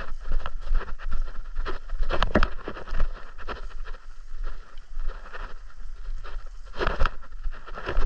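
Irregular scuffs, clicks and knocks of handling and movement close to the microphone, loudest about two seconds in and again near the end, over a steady low rumble.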